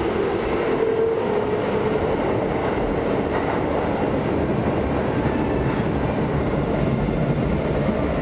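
Train sound effect: the steady noise of a fast train running along its track, stopping abruptly at the end.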